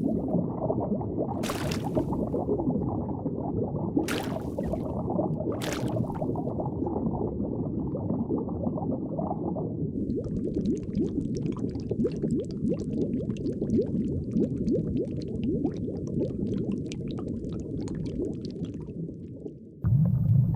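Underwater ambience: a steady low watery rumble, with three brief bubbling bursts in the first six seconds and a fine crackling from about halfway through until near the end.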